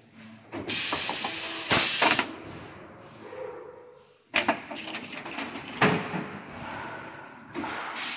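Injection moulding machine running a flip-top cap mould with a pneumatic in-mould cap-closing system: loud compressed-air hiss for over a second near the start and again near the end, with sharp metallic clacks at about two seconds, four and a half and six seconds, as the mould opens and the caps are closed and ejected.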